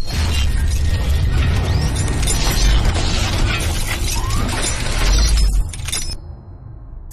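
Logo-intro sound effect: a loud, dense shattering crash over a deep bass rumble, dropping away about six seconds in.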